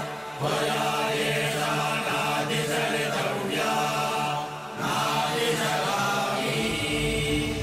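Mantra-style chanting by voices over a steady musical drone, in phrases broken by short pauses about half a second in and again near five seconds. A deep low layer comes in near the end.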